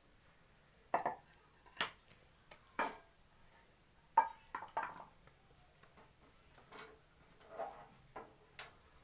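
A frying pan and cookware clattering as the pan is set on the stove and handled: a series of separate knocks and clinks, the sharpest about four seconds in.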